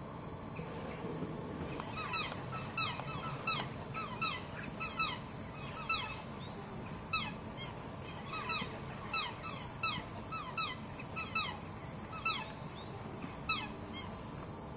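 Black swan calling: a string of short honks, each falling in pitch, about one a second, starting about two seconds in and stopping shortly before the end.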